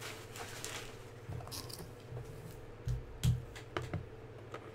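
A small white cardboard trading-card box being handled: soft rustling with a few light taps and knocks, the strongest about three seconds in, over a faint steady hum.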